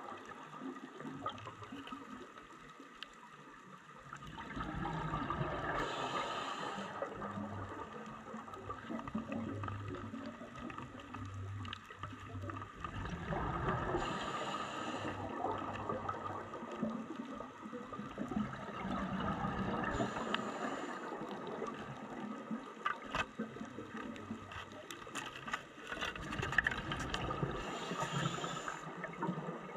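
Scuba diving heard underwater: a steady watery hiss, with a bubbling rush of exhaled regulator bubbles every six to eight seconds.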